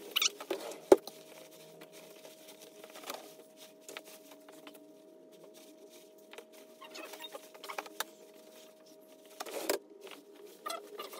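Clothes being handled and shaken out, with soft scattered fabric rustles and a sharp knock about a second in. A faint steady hum lies underneath, and the rustling thickens near the end.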